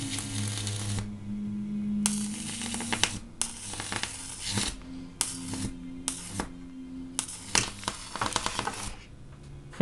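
High-voltage arc from a homemade ZVS-driven flyback transformer hissing and crackling as it is drawn out with an insulated rod. It strikes and breaks off about six times, each burst starting and stopping abruptly, with sharp snaps in between, over a low steady hum that shifts in pitch.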